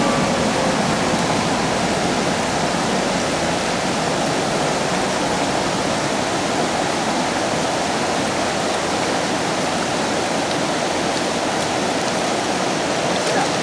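River current rushing steadily, a constant even rush of flowing water.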